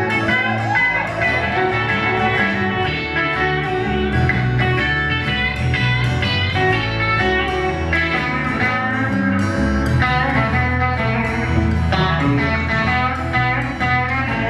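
Live band playing an instrumental break: guitars picking a melody over bass and a steady beat, with no vocals.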